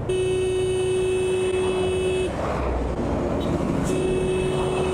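Two long blasts of a vehicle horn, each held about two seconds with a short pause between, over motorbike engine and road noise.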